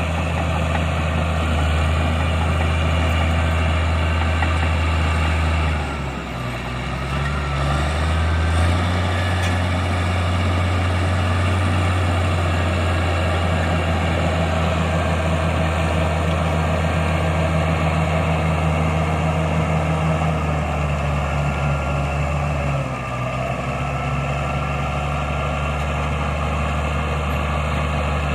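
CAT D6G bulldozer's diesel engine running steadily. Twice the engine note briefly sags in pitch and level, then picks back up.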